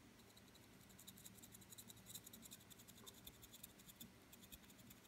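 Faint, quick, irregular scratching of a dry brush's bristles being flicked over the raised edges of a painted miniature, starting about a second in.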